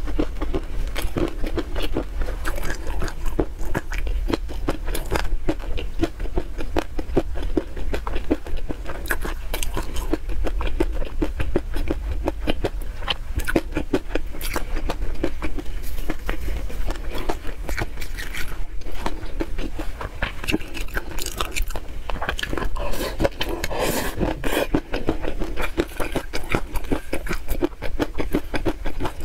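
Close-miked eating sounds: a silicone spatula scraping chili peanut sauce across a plate, with dense wet clicks and crackles of chewing and mouth sounds throughout, over a steady low hum.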